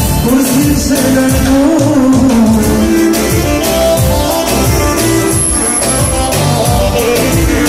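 Loud music with singing over a steady beat.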